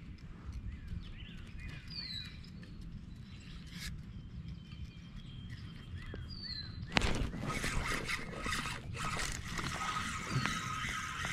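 Birds chirping in short, falling calls over a low steady outdoor rumble. About seven seconds in there is a sudden sharp knock, after which the background grows busier, with a steady high trill near the end.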